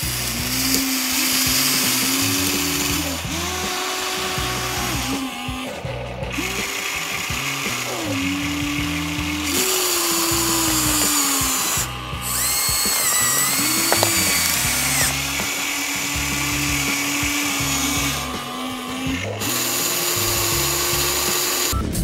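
Electric motors and plastic gearboxes of a Huina remote-control excavator whining as the boom, arm and bucket work, the pitch stepping up and down with each movement and stopping briefly between moves.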